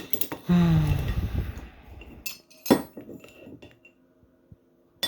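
Steel transmission parts clinking and knocking as the freshly removed input shaft bearing is handled: a few sharp metallic clinks and a knock around the middle and near the end. A louder sound falling in pitch comes about half a second in.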